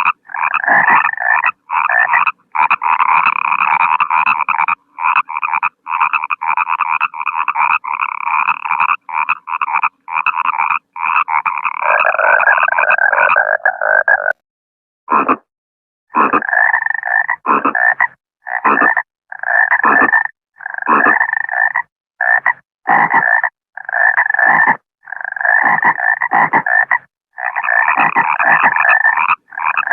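Frog croaks in a long series. For the first half they are mostly long calls, some held a second or two, with brief silent gaps between them. After a pause of about two seconds midway, they come as shorter croaks, roughly one a second.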